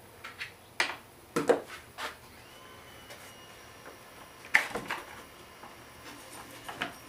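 Handling clatter: scattered clicks and knocks of a cordless driver and a weed eater's plastic engine shroud being handled on a wooden workbench, the loudest knock about four and a half seconds in.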